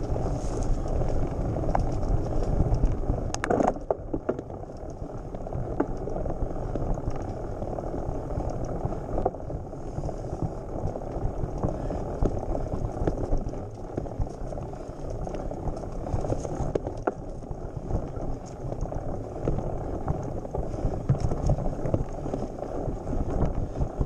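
Mountain bike ridden over a rough dirt and gravel trail, heard from a handlebar-mounted camera: a steady rumble of tyres on the ground and frame rattle, with scattered clicks and knocks, louder for the first few seconds.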